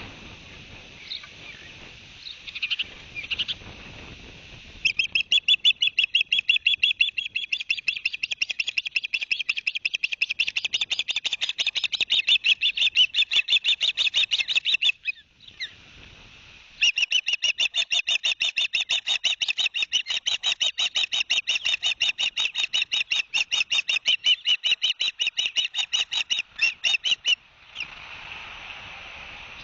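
Osprey calling in two long runs of rapid, high, evenly repeated chirps, with a short break between them.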